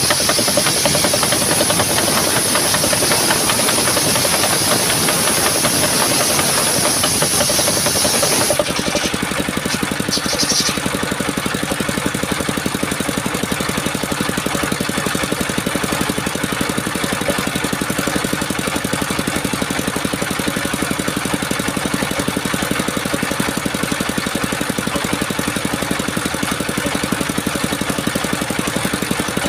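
Engine-driven circular sawmill blade cutting through a coconut trunk, a loud steady hiss over the running engine. About eight and a half seconds in the cut ends and the engine runs on steadily with the blade spinning free.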